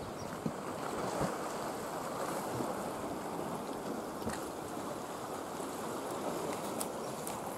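Small sea waves washing steadily against shoreline rocks.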